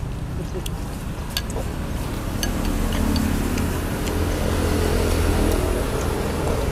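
Steady low rumble of a vehicle engine running nearby, growing louder after a couple of seconds, with a few light clinks of chopsticks and spoons against bowls.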